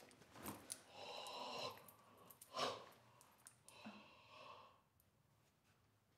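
A person breathing out in soft, airy sighs, three times, the middle one the loudest, then near silence for the last second or so.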